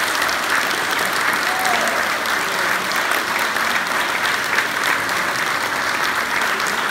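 Audience applauding steadily after a live folk-band number.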